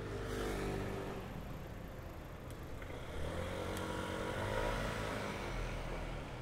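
Road traffic: motor vehicle engines running past, one fading away in the first second and another rising in pitch and growing louder from about three seconds in, over a steady rush of road noise.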